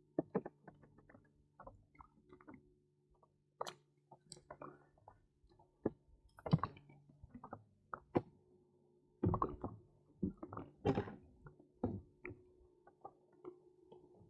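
Irregular light knocks and clicks against a kayak, a few louder ones in the second half, over a faint steady hum.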